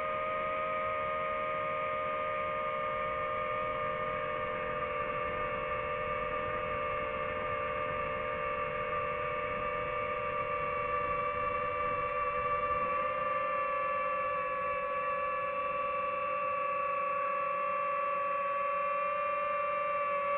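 DJI FPV drone's motors and propellers whining steadily as it hovers, a constant pitched hum whose pitch wavers only slightly.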